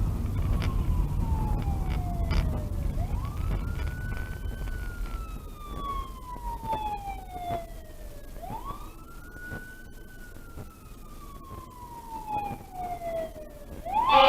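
Fire engine siren on wail, rising quickly and then falling slowly in pitch, three times over, with low traffic rumble in the first few seconds.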